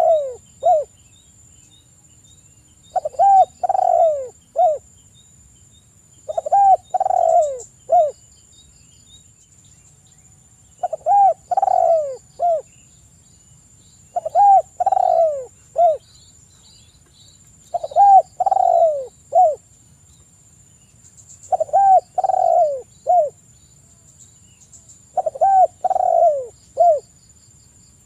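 Spotted dove cooing: a short phrase of three or four low, falling coos, repeated about every three and a half seconds, eight times in all.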